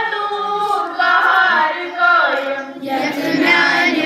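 A large group of schoolchildren singing together in unison, holding long notes with pitch glides between them.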